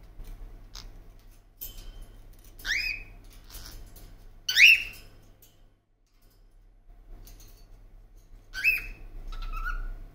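Pet parrot giving short whistled chirps that sweep upward in pitch, four or five in all, the loudest about four and a half seconds in.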